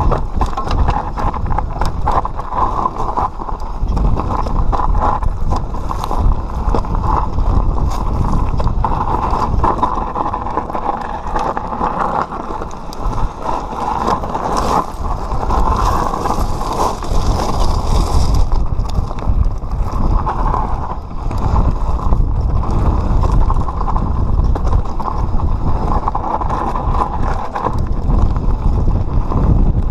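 Mountain bike descending a rocky, loose-gravel trail: a constant clatter and rattle of the bike and chain over stones, with tyres crunching on loose rock.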